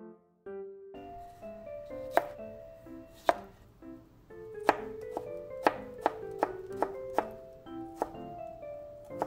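Chef's knife slicing cucumber on a plastic cutting board: about ten sharp knocks of the blade on the board, spaced out at first, then a quicker run in the middle. Background music plays under it.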